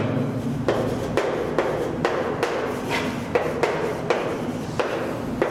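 Chalk tapping and scratching on a chalkboard as words are written by hand, a quick tap at nearly every stroke, about two a second.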